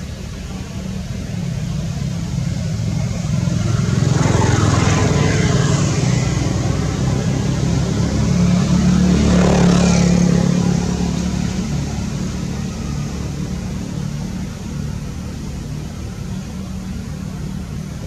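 Motor vehicles going past: a steady engine hum that swells twice, about four seconds in and again about nine seconds in, each time dropping in pitch as it fades away.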